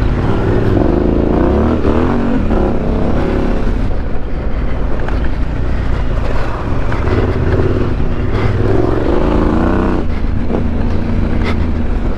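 Yamaha Ténéré 700's parallel-twin engine with a Mivv Dakar exhaust, heard on board at race pace. The engine pitch rises and falls repeatedly as the throttle opens and closes through the gears.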